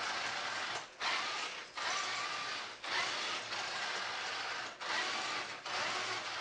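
Heng Long 3819 Panther RC toy tank's small electric drive motors and plastic gearboxes whirring as it drives and pivots, in bursts of one to two seconds that cut out briefly and restart several times as the controls are worked.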